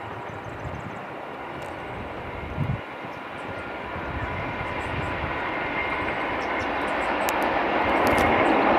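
Two NSW 47 class diesel locomotives hauling a passenger train approach, their engines' steady drone growing louder throughout. There is a brief low thump about two and a half seconds in.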